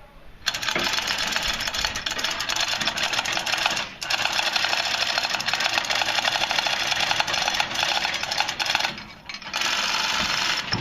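Pneumatic impact wrench hammering in rapid chatter, in three long bursts with short breaks about four and nine seconds in, as fasteners on the locomotive's diesel engine are worked during teardown.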